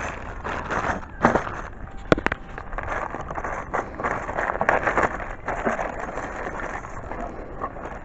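Plastic bag holding new brake-pad hardware crinkling and rustling as it is handled and opened, with a few sharp clicks around two seconds in.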